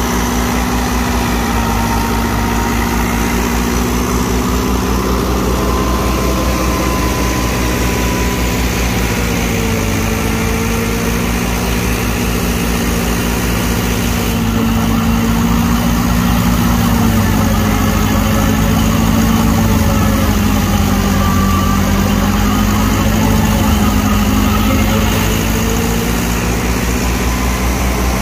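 Massey Ferguson 375 tractor's diesel engine running steadily under load, belt-driving a wheat thresher, together with the hum of the thresher's drum. The pitch wavers slightly as the load changes.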